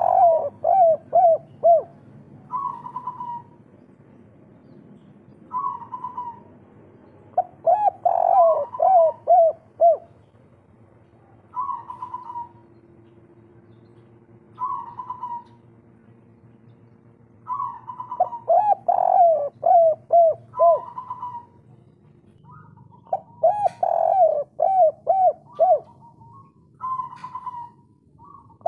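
Spotted dove (derkuku) cooing its kuk-3 call. Four phrases, each a higher opening coo and then a quick run of four or five lower, dipping coos, with single short coos in the pauses between phrases.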